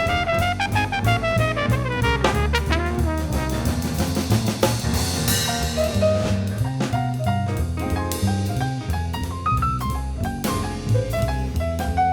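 Background music: an upbeat jazz tune with brass horns carrying the melody over bass and a drum kit.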